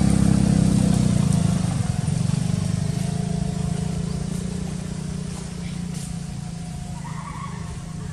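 Engine of a motor vehicle running steadily and fading away as it moves off. A brief high call near the end.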